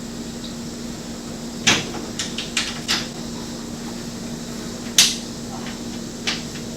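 Scattered sharp metal clicks and clinks of bolts and nuts being started by hand into a metal bumper's winch mount plate, about six in all, over a steady hum.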